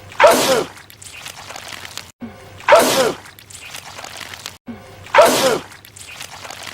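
A man's loud sneeze, the one spraying goo, repeated three times in a loop about two and a half seconds apart. Each starts suddenly as a burst of spray-like noise with a vocal cry whose pitch drops.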